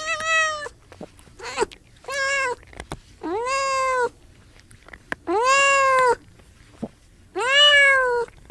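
Domestic cat meowing over and over: five clear, drawn-out meows and one fainter one, each under a second long, rising then falling in pitch, with a second or so between them.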